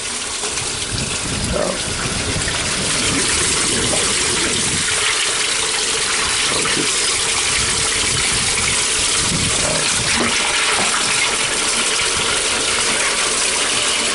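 Steady gush of running water through a fish-cleaning station's waste grinder as it runs; the grinder motor itself is quiet under the water. The rush builds over the first few seconds, then holds steady.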